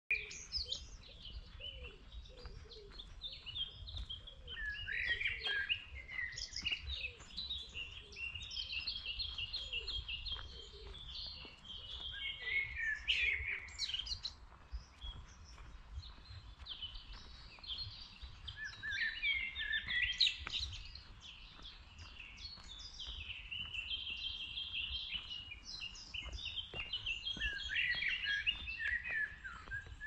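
Several songbirds singing and chirping, with trills and short phrases overlapping throughout, over a low steady rumble.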